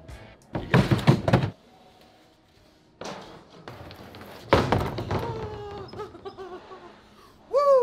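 Plywood sheets slapping and thudding down onto plastic storage totes: a cluster of loud knocks about a second in, then another loud thud a little after the middle that rings and fades. A short falling tone is heard near the end.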